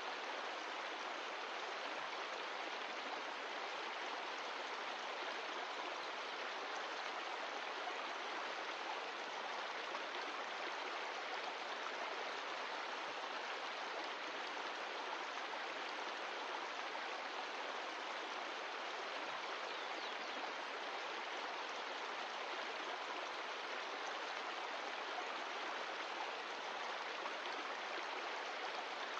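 Mountain stream of glacial meltwater rushing steadily over rocks, an even, unbroken water noise.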